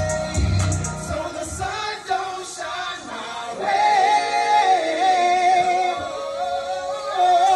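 Hip-hop track with a sung, wavering vocal melody over synths. The deep bass beat drops out about a second in and comes back at the end.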